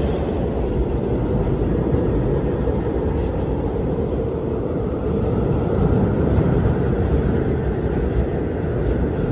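Howling wind: a steady low rush with a faint moaning tone that drifts in pitch, swelling a little past the middle.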